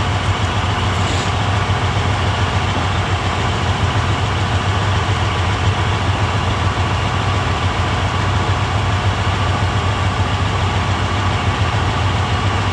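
Semi truck's diesel engine idling steadily, a low drone heard from inside the cab.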